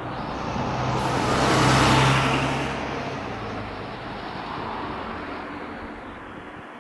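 A motor vehicle passing close by on the road, its engine and tyre noise swelling to a peak about two seconds in and then fading away.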